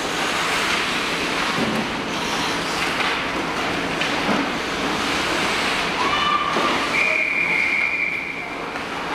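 Indoor ice hockey practice: skate blades scraping and carving the ice, with sticks and pucks knocking, in a steady echoing rink noise. A voice calls out about six seconds in, followed by a steady high tone lasting about a second and a half.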